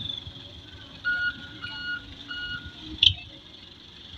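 A truck's reversing alarm beeping three times at an even pace, then a single sharp click about three seconds in.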